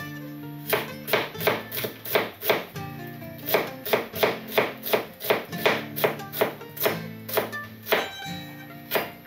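A kitchen knife mincing onion on a wooden cutting board: sharp, even chops about two to three a second, with a couple of brief pauses. Soft background music plays underneath.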